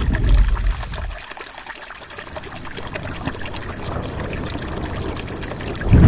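Heavy rain falling, a steady hiss full of individual drops striking. A heavy low rumble fades away about a second in and comes back loud at the very end.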